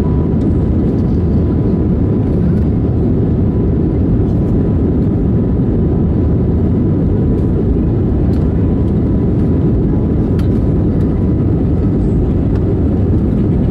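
Steady low rumble of an Airbus A320neo's cabin noise heard from inside the cabin, with a faint steady high tone over it and a few light clicks.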